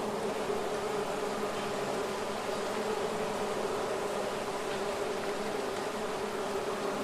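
Bees buzzing in a steady, continuous hum.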